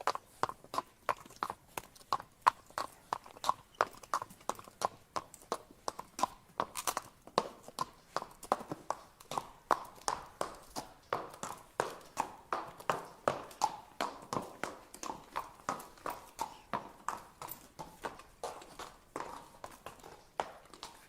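A horse's hooves clip-clopping on a hard surface at a walk: a steady rhythm of sharp knocks, about three hoof strikes a second.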